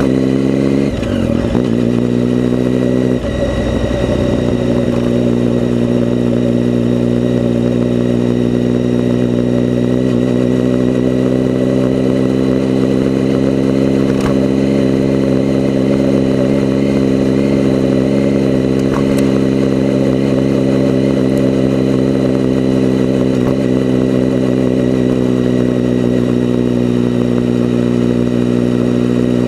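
Vehicle engine running at a steady speed. Its pitch shifts in the first few seconds, then holds. The sound is heavily muffled, with little in it above the low engine tones.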